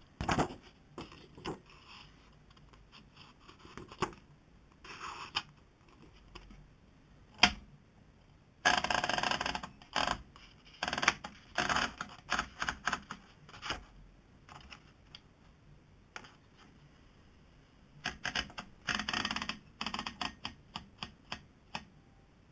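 Olivetti manual typewriter being typed on: sharp key-and-typebar clacks in irregular runs, with pauses between them and two dense flurries, one about nine seconds in and one near nineteen seconds.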